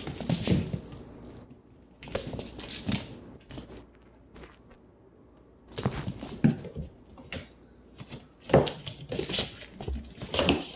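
A cat's paws scrabbling, skidding and thumping on a laminate floor as it runs and pounces, in four bursts of quick knocks with pauses between. A thin high ringing goes with the bursts, and there is one sharp knock near the camera about eight and a half seconds in.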